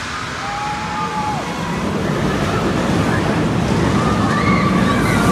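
Steel roller coaster train running along its track, a rushing noise that grows steadily louder as it comes nearer.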